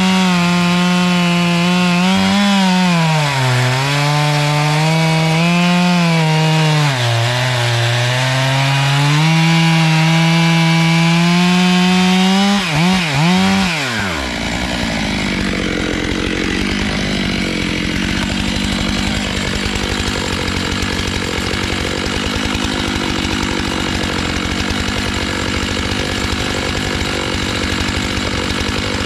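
A 92 cc Stihl MS 661 chainsaw with a 20-inch bar running at high revs and cutting through a log, its engine pitch sagging under load and recovering several times. About 13 seconds in it revs up and down quickly a few times, then the sound turns to a rougher, steadier noise with no clear engine tone.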